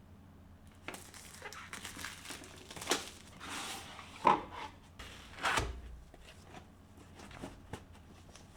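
Packaging being handled: irregular crinkling and rustling with sharp clicks, the loudest click about four seconds in and a dull thump soon after, then only light ticks.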